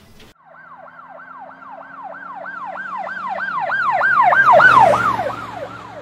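Emergency-vehicle siren on a fast yelp, about three to four rising-and-falling wails a second. It swells to its loudest about five seconds in, then drops a little in pitch and fades as it passes.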